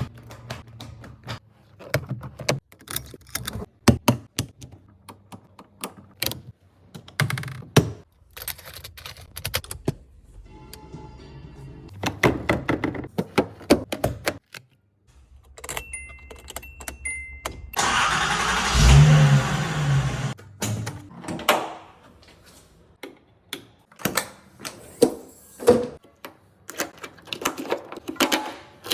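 A run of clicks and knocks from a 1981 Datsun 280ZX's switches, controls and latches, with a brief two-tone electronic chime a little past the halfway point. Right after the chime comes the loudest sound, about two seconds of the engine starting, after which the clicking resumes.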